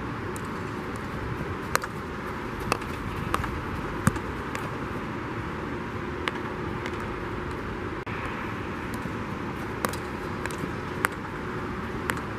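Field hockey stick striking and tapping a hard plastic ball on artificial turf: sharp, short clacks at irregular intervals, a few close together, over steady background noise.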